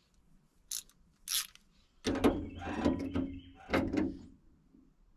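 Cam lock hardware being worked into a steel toolbox door. Two light metal clicks come in the first second and a half, then about two seconds of rattling and scraping of metal on metal.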